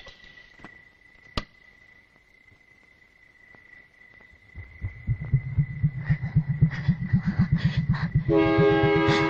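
Horror-film soundtrack: a thin steady high tone over a quiet night backdrop with a few faint clicks and one sharp click. From about halfway a rapid, regular low pounding pulse builds and grows loud, and sustained music notes come in near the end.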